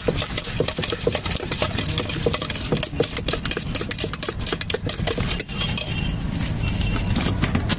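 Steel spoon clinking and scraping rapidly against a steel bowl while bhel mix of puffed rice is stirred and tossed, over a steady low rumble.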